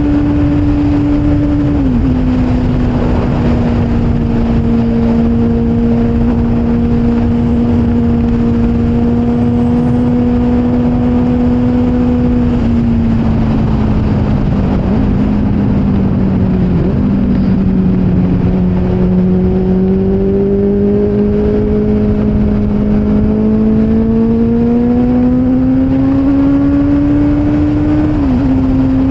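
Motorcycle engine under way, with wind and road rush over it. The engine note holds steady, steps down with an upshift shortly after the start, eases off around the middle, then climbs steadily before another upshift near the end.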